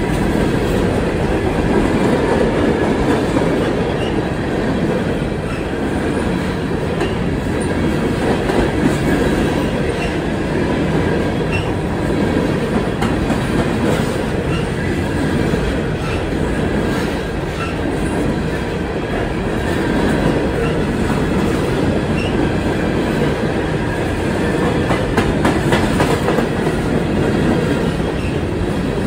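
Slow freight train of steel open-top coal cars rolling past close by: a steady rumble of wheels on the rails, with clickety-clack from the rail joints and faint high wheel squeal.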